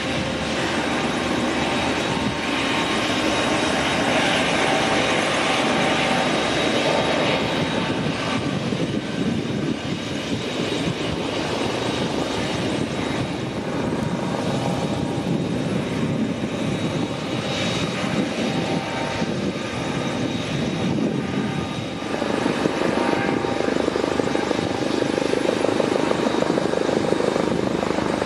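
Eurocopter MH-65 Dolphin twin-turbine helicopter in flight: a fast rotor chop with a steady whine from the turbines and the shrouded fenestron tail rotor. It grows louder over the last few seconds as the helicopter turns toward the microphone.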